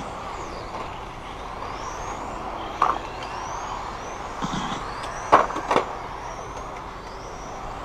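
Electric radio-control touring cars racing on asphalt: thin high motor whines that rise in pitch as the cars accelerate, over a steady hiss, with a few sharp knocks, the loudest about five and a half seconds in.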